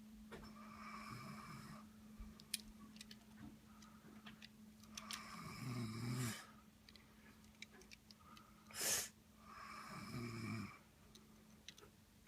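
A sleeping man snoring: three snores about four to five seconds apart, the first faint and the later two louder, each ending in a low rattle. A short, loud burst of noise about nine seconds in.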